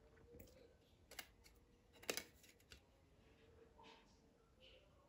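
Near silence with a few faint, short clicks and ticks, the strongest about two seconds in, from a rubber-powered model plane's folding propeller, plastic blades on bamboo hinges, being handled and turned by hand.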